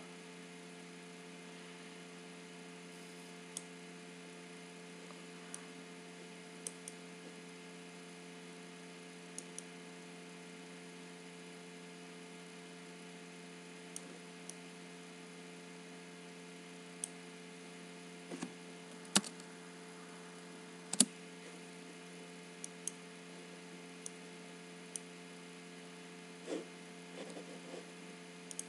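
Scattered computer mouse clicks, a dozen or so at irregular intervals, as the on-screen sliders are set, the loudest about two-thirds of the way in. A steady electrical hum runs underneath.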